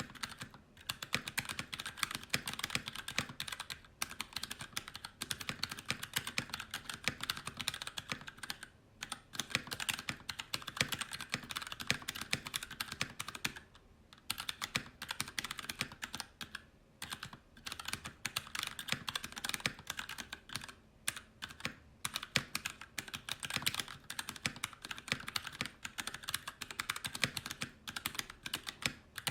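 Fast continuous typing on a mechanical keyboard with PBT keycaps: a dense stream of key clacks, with a few short pauses.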